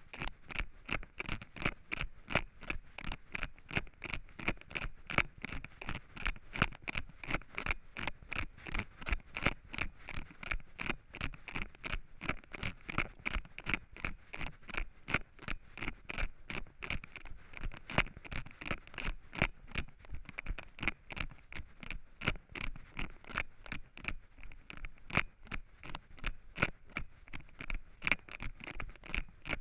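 Running footsteps crunching through dry fallen leaves on a woodland trail, an even stride of about three steps a second.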